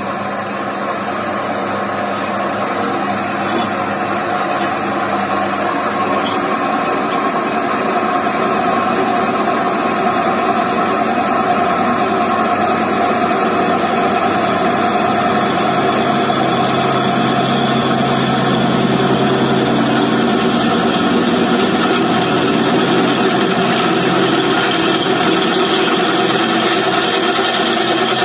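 Homemade drill press with a belt-driven electric motor running without load, its 16 mm drill bit spinning free: a steady hum.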